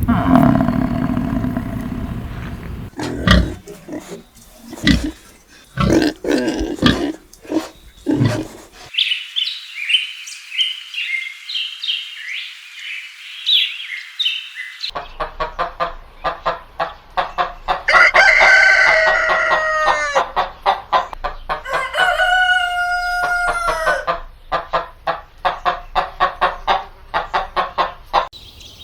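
Chickens clucking in quick, rhythmic clucks, with a rooster crowing twice past the middle. Earlier there is a stretch of high-pitched chirping.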